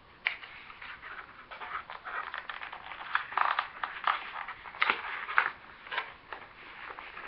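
Cardboard toy box and its packaging rustling and scraping as hands work a plush toy out of it, with irregular crinkles and a few sharp clicks.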